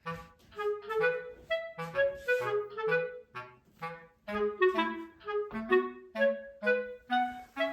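Background music: a light, bouncy tune of short, separate notes on a clarinet-like woodwind over a plucked low line.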